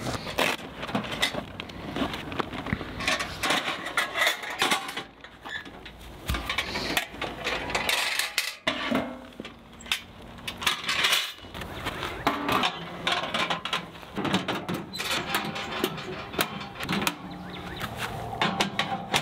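Irregular clatter of sharp knocks and metallic clinks.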